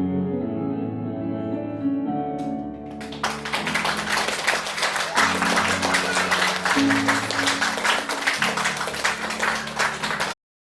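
Instrumental music with a plucked, guitar-like melody. About three seconds in, audience applause breaks out over the music. Both stop abruptly just before the end.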